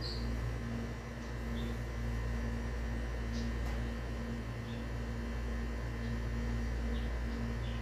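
Pot of chicken in spiced stock boiling on a stove burner: a steady low hum and hiss with a few faint ticks.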